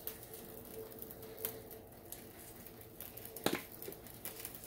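Quiet kitchen handling noise: a few light knocks and clicks, the loudest about three and a half seconds in, over a faint steady hum.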